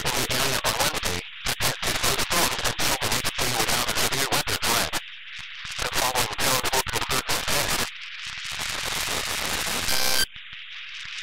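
NOAA Weather Radio broadcast heard through heavy radio static: the closing speech of the weekly test message, then a stretch of plain hiss. About ten seconds in comes a short, loud burst of the EAS end-of-message data tones, and the next burst starts just at the end.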